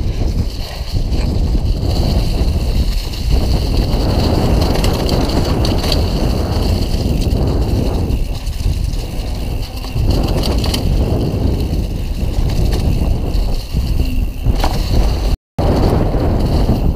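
Mondraker Dune RR enduro mountain bike riding fast down a leaf-covered dirt singletrack: wind rushing over the microphone with tyre noise and rattling from the bike over the ground. The audio cuts out for a split second near the end.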